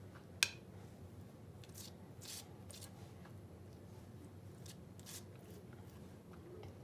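Silicone pastry brush stroking egg wash onto soft raised bread dough: faint, irregular soft swishes, with one light click about half a second in.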